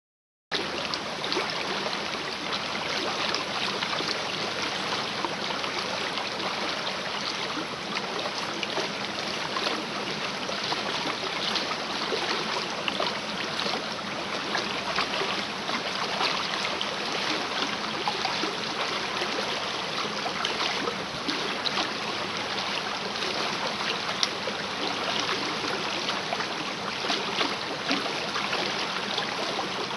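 Swollen small river after rain, fast water rushing and splashing in a steady wash with many small splashes.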